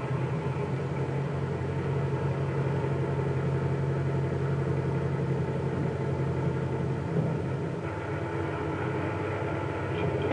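Truck engine idling steadily at an even speed.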